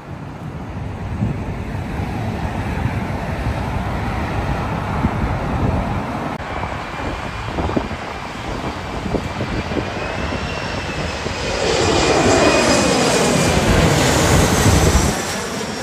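Twin-engine jet airliner on final approach to land, passing low overhead with landing gear and flaps down. The engine noise builds, is loudest about twelve to fifteen seconds in, and falls away. A high fan whine drops in pitch as the jet goes past.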